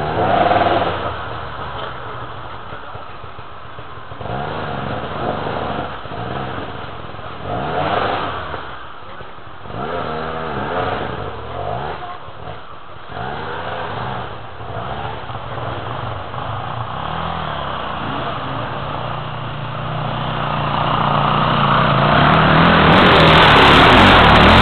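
Dirt bike engine revving up and down over and over as the bike climbs a steep, stony forest slope. Near the end a dirt bike runs loud and close.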